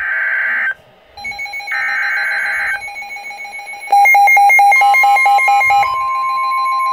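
Emergency Alert System signals for a severe thunderstorm warning. Two short bursts of digital header data come first, at the start and about two seconds in. A steady electronic alert tone runs under them, and a loud, fast-pulsing alarm beep comes in about four seconds in. Near the end a new steady alert tone takes over.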